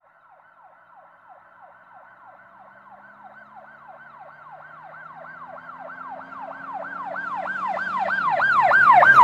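A siren with a fast, repeating wail, about three falling sweeps a second, growing steadily louder, with a faint low hum beneath.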